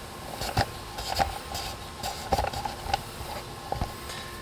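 A tool scraping and prying flakes of thin, poorly bonded coating off a concrete slab: about five sharp knocks and clicks as pieces break loose, over a faint steady tone.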